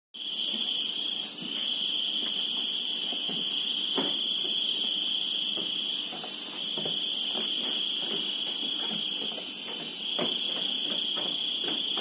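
Night chorus of insects such as crickets, a steady high-pitched shrilling at several pitches at once, with faint scattered clicks underneath.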